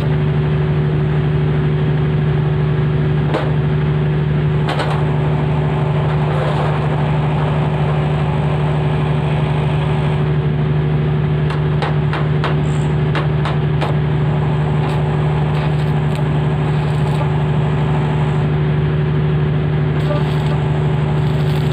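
Steady machine hum at an even level, with a few faint ticks about twelve to fourteen seconds in.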